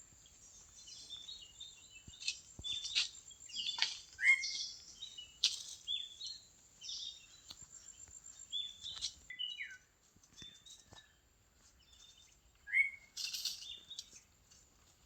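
Birds chirping with short, repeated calls and quick pitch glides, joined by a few sharp clicks. The calls ease off for a couple of seconds about two-thirds of the way through, then pick up again.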